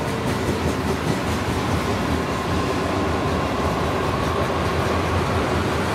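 Freight train of ethanol tank cars rolling past: a steady rumble and rattle of wheels on rail, with a faint steady high whine under it.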